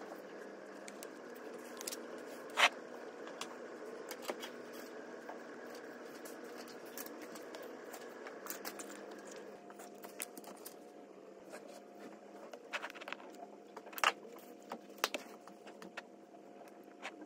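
Light taps and clicks of things handled on a desk over a steady low room hum, with one sharp click about two and a half seconds in and a few more near the end.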